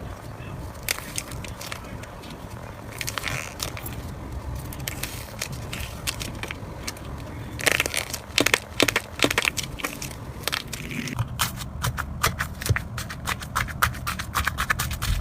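Slime being squeezed, pressed and poked by hand, giving a run of sharp clicks and pops that come faster in the last few seconds, with the loudest cluster a little past the middle.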